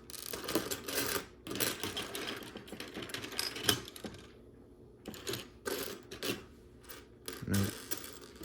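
Loose plastic Lego Technic pieces clattering and clicking as a hand rummages through them, in quick irregular bursts, with one sharper click a little before halfway.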